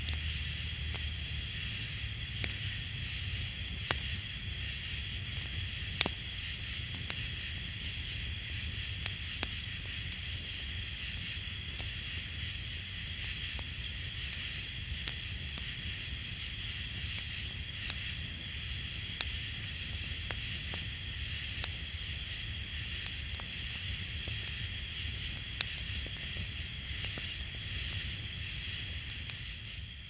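Night ambience: a steady insect chorus of the cricket kind over a low rumble, with scattered sharp clicks.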